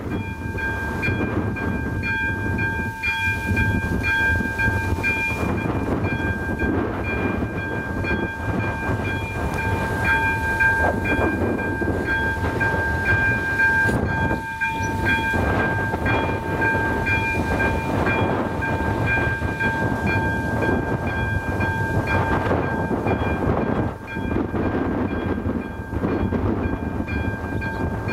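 Electronic level-crossing warning bell (AŽD ZV02) starts ringing about a second in and keeps up a steady high ringing tone, the crossing's warning that a train is approaching. A steady low rumble runs underneath.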